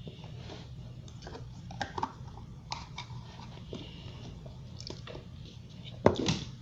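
Faint scattered clicks and rustles of small toys being handled, with a louder knock about six seconds in, over a steady low hum.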